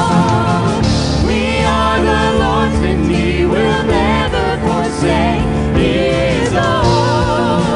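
Live contemporary Christian worship song: two women singing the lead with vibrato over a full band of drum kit, electric guitar and keyboard.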